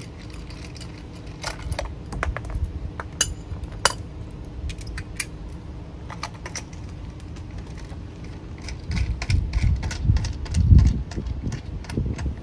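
Small metallic clicks and clinks of a wheel-lock key, lug nut and hand tool being handled and fitted at a truck's wheel. Dull low bumps come about three-quarters of the way through.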